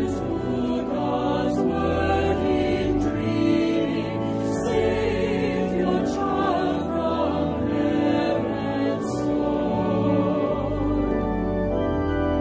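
Choir singing a hymn on long held notes, with organ accompaniment sustaining a deep bass beneath.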